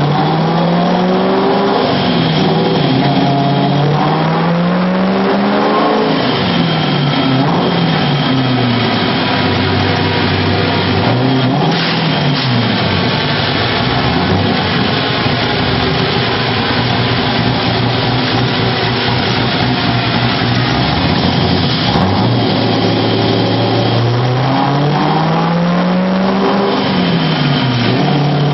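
Engine of a vehicle being driven, its revs climbing and dropping back again and again as it speeds up and slows, with a steadier stretch in the middle.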